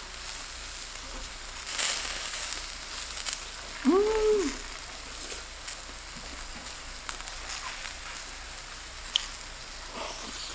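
Zucchini slices sizzling on a hot griddle pan, a steady hiss. About four seconds in there is a short hummed "mm", and a few soft clicks are heard.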